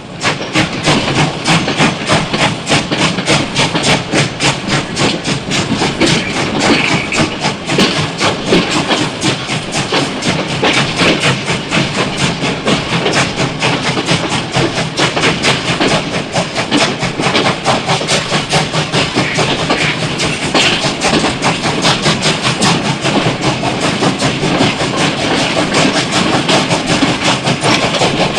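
Steam locomotive running, with a fast, steady, rhythmic chuff and clatter.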